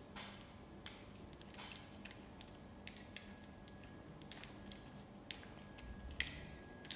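Faint, scattered clicks and short scrapes of a black plastic tripod clamp attachment being turned and handled.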